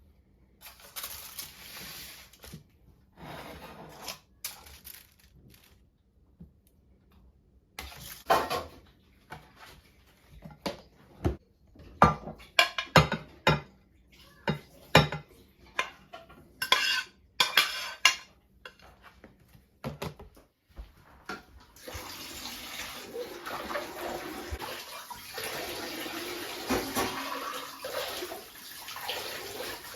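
Kitchen sounds: dishes and cutlery clinking and knocking, then a steady rush of running water from about two-thirds of the way in.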